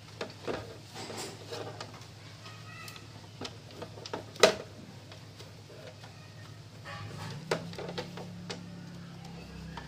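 Clicks and knocks of plastic parts being handled as a reset (overload protector) switch is fitted into a mixer grinder's plastic base plate, with one sharp click about four and a half seconds in. A low steady hum runs underneath, stronger in the second half.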